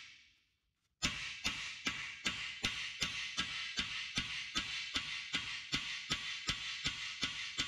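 Hand hammer peening down a hot steel rivet on an Alec Steele anvil, heading the rivet. The blows start about a second in and come steadily at about two to three a second, each one ringing bright off the anvil.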